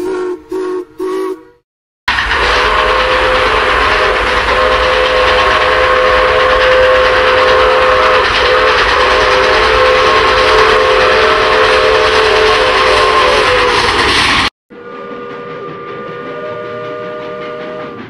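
Steam locomotive whistles sounding in a series of separate recordings. First a few short toots, then a loud chime whistle blast held for about twelve seconds over heavy steam hiss, briefly dipping twice in the middle. It cuts off suddenly and gives way to a quieter, steadier whistle chord.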